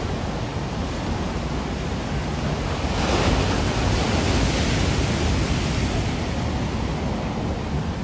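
Big ocean surf: large waves breaking and whitewater rushing in over a rocky shore, a continuous roar. It swells into a louder crash about three seconds in and eases off after about six seconds.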